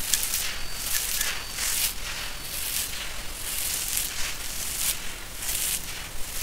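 Handfuls of dry sand-cement mix with fine gravel scooped up and dropped by hand, a hissing rush of pouring grit about once a second.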